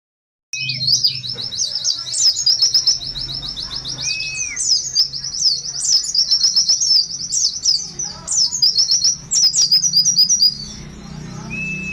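White-eye (pleci buxtoni) singing a long, fast, high twittering song that starts about half a second in and stops near the end, with a few lower curved notes mixed in. A steady low hum runs underneath.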